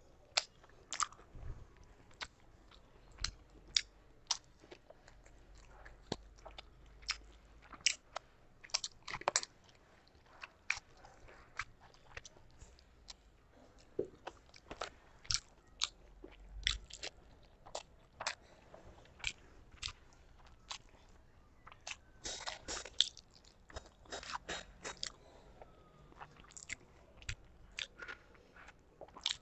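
Close-miked chewing of rice and curry eaten by hand, a string of sharp mouth clicks at irregular intervals, thickening into a quick run about three-quarters of the way through.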